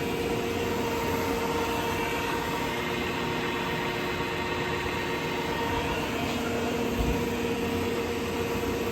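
Kingston engine lathe running under power, a steady gear whine with several held tones. A lower tone joins about six seconds in, and there is a short low thump about a second later.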